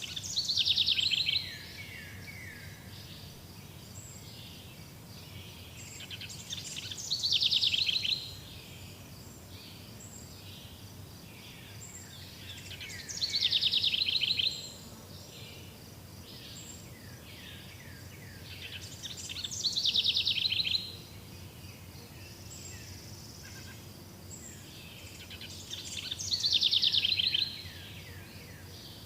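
A songbird repeating the same short song five times, about every six seconds. Each song is a fast trill of notes that builds and falls in pitch over about a second and a half. Faint chirps and steady background noise run underneath.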